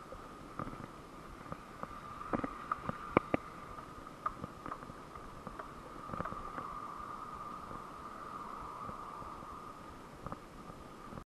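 A BMX bike ridden over a dirt track, heard through an action camera's own microphone: a steady hum with irregular knocks and rattles from the bike jolting over bumps, the sharpest cluster a few seconds in.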